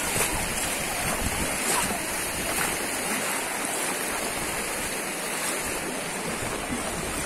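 Floodwater rushing across a road: a steady watery wash mixed with wind noise on the microphone.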